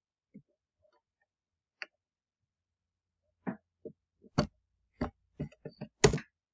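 Computer keyboard and mouse clicks: a few faint ticks early on, then a scattered run of about ten sharp clicks and key taps over the last three seconds, the loudest near the end.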